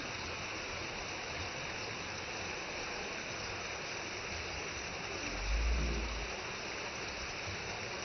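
Small waterfall's water rushing steadily down a rock face, with a brief low rumble a little past halfway through.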